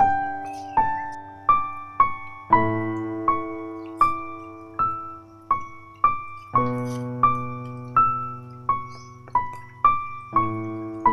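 Background music: a slow solo piano melody, one struck note about every three-quarters of a second, each fading away, over low chords that change every few seconds.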